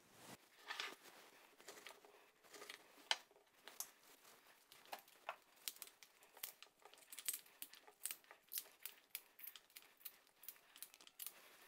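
Quiet, crisp snaps and crackles of the tough outer leaves being broken off a small fresh artichoke by hand, coming quicker in the second half at about three snaps a second.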